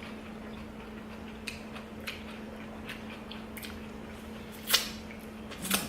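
Close-up chewing with small wet mouth clicks, and two louder sharp clicks near the end. A steady low refrigerator hum runs underneath.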